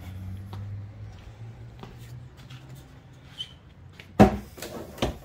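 Van side door being opened: a sharp latch clack about four seconds in, followed by two lighter knocks.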